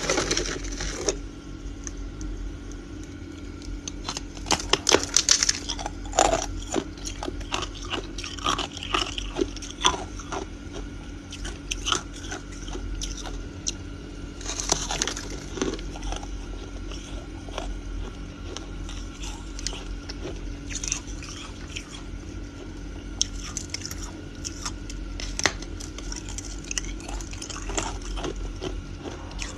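Thin ice being bitten and chewed: repeated sharp cracks and crunches, louder clusters of crackling about four to six seconds in and again around the middle.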